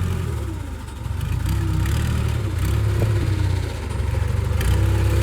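Backhoe's diesel engine running; it eases off about a second in, then picks up again.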